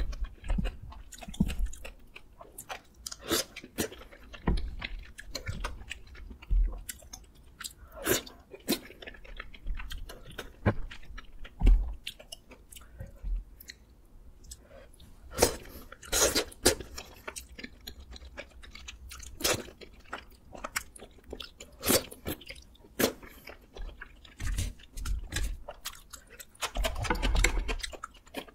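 Close-up chewing of rosé tteokbokki and wide glass noodles in rosé sauce, with irregular sharp clicks and knocks throughout and a busier stretch near the end.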